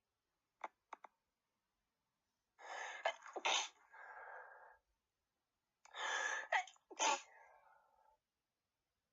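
A person sneezing twice, about three seconds apart. Each sneeze has a breathy build-up, sharp loud bursts and a trailing breath. A few short clicks come within the first second.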